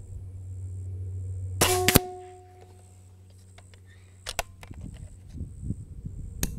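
Benjamin Bulldog .357 PCP air rifle firing one shot about one and a half seconds in, a loud report with a short ring fading after it. A few sharp clicks follow around four seconds and near the end as the action is worked for the next round.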